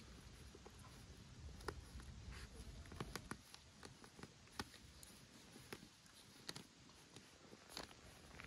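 Near silence, with faint, scattered clicks and taps over a low background rumble.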